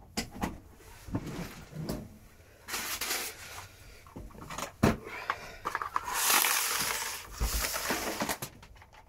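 Objects being handled close by: a run of clicks and knocks, one sharp knock about five seconds in, and bouts of rustling, the longest about six seconds in.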